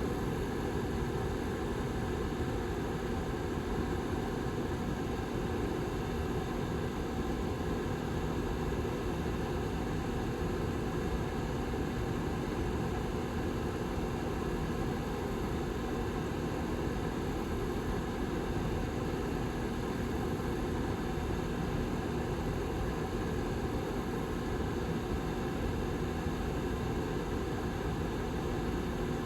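Rear fan of a Lasko Model 755320 ceramic tower heater running steadily: an even rush of air with a faint, steady low hum underneath.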